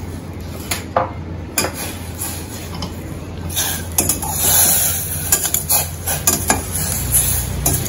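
A perforated steel skimmer scraping and clinking against a stainless steel saucepan as lumps of jaggery are stirred into water. The clinks are scattered at first and come more often from about halfway in.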